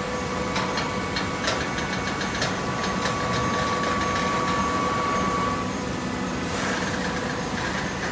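Hydraulic baling press running with a steady mechanical hum. A run of sharp metallic knocks comes in the first three seconds, and a short rushing noise about six and a half seconds in.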